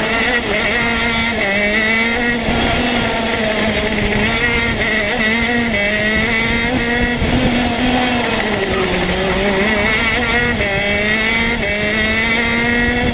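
TM two-stroke racing kart engine at race pace, its pitch rising and falling as the kart accelerates out of corners and brakes into them, with a deeper drop in revs about two-thirds of the way through.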